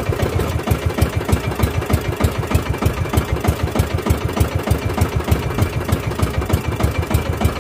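Small engine of a motorized outrigger fishing boat running steadily, with a rapid, even pulsing beat.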